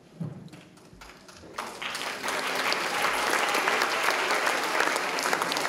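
Audience applauding. It starts about a second and a half in and quickly builds to steady clapping.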